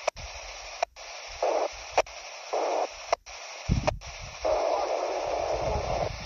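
Icom IC-E91 handheld transceiver's speaker hissing with FM static on 145.425 MHz, a weak, noisy signal broken by several sharp clicks and brief dropouts.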